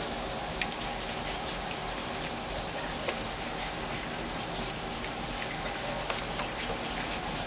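A litter of boxer puppies lapping and smacking at a shared dish of wet puppy-food mush, many mouths making a steady wet patter with a few light clicks.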